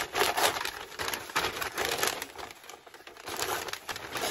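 Sheets of sublimation paper crinkling and rustling in irregular bursts as hands handle and rearrange them.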